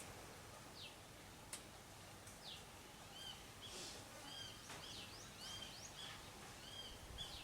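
Faint bird calls over a quiet outdoor background: a couple of short falling notes, then a run of quick, repeated arched chirps through the second half.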